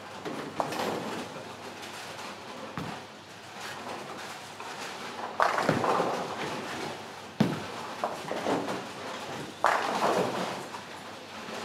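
Ten-pin bowling: balls rolling down the lanes and crashing into the pins, with three loud pin crashes, the first about halfway through and two more roughly two seconds apart, each a sharp hit followed by a brief clatter.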